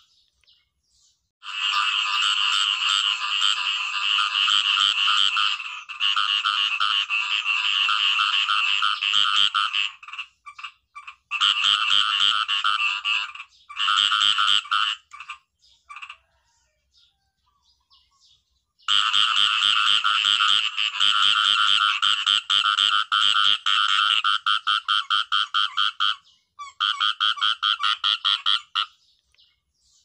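Khiat i-mo frogs (เขียดอีโม้) croaking in long trains of rapid pulses. The calls come in bouts several seconds long, with short pauses between them.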